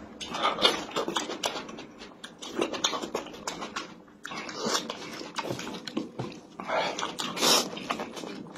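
Close-up mouth sounds of a man eating instant noodles: wet chewing and smacking with several loud slurps. The loudest slurp comes near the end, as he sucks up a mouthful of noodles.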